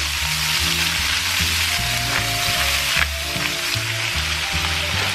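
Shredded cabbage sizzling in a pan of frying bacon while gloved hands press and turn it over. There is a steady sizzle with a couple of sharper crackles about two and three seconds in.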